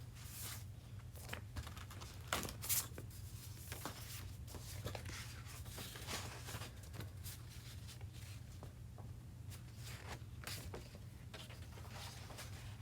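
Paper sheets and plastic packaging rustling and crinkling as they are handled, with a couple of sharper crackles about two and a half seconds in.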